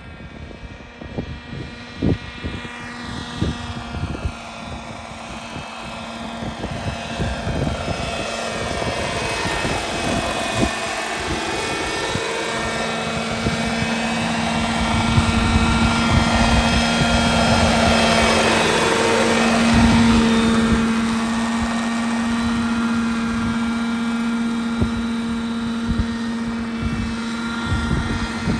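Schluter Scout RC helicopter flying, its O.S. 61 two-stroke glow engine and rotors running with a steady multi-toned drone that sweeps in pitch at first, then grows louder as the model comes in low to hover close by.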